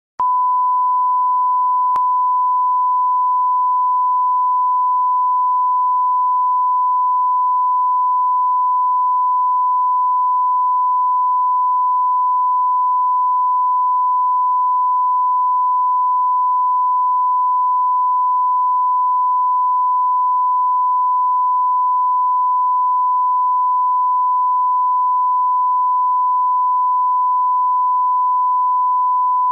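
Broadcast 1 kHz line-up tone, the steady sine reference tone sent with colour bars for setting audio levels. It starts suddenly just after the beginning and holds one unbroken pitch at a constant level.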